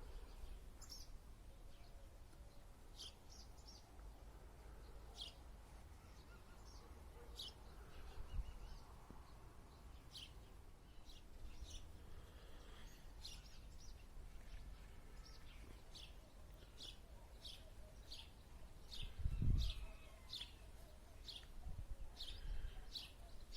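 Birds chirping outdoors: short high chirps repeating about once a second, coming faster in the second half, over a low rumble of wind on the microphone. A single low thump about three quarters of the way through is the loudest sound.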